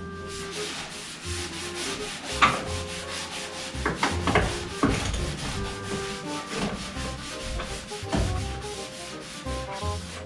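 Sanding on the body of a 1969 Dodge Charger being taken down to bare metal: a continuous rubbing of rapid, repeated strokes.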